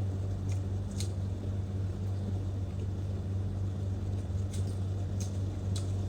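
Eating sounds from people chewing grilled chicken: a few short sharp smacks about a second in and again near the end, over a steady low electrical hum.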